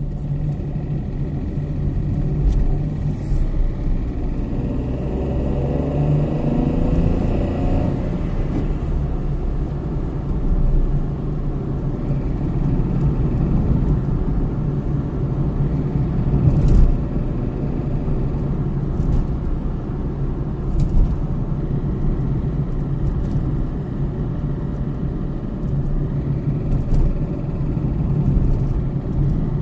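Peugeot 107's 1.0-litre three-cylinder petrol engine running and revved up several times, with a pretty loud ticking noise that comes in as the gas pedal is pressed. The oil level is fine and the cause of the ticking is not yet known.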